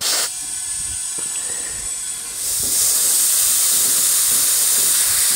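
Air hissing at a go-kart tyre's valve stem, steady, growing louder about two and a half seconds in.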